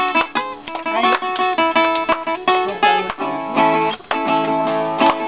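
Acoustic guitar music: strummed chords with a plucked melody, the instrumental opening of a dance song.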